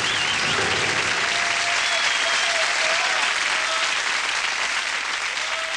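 Studio audience applauding steadily, with a few cheers over the clapping.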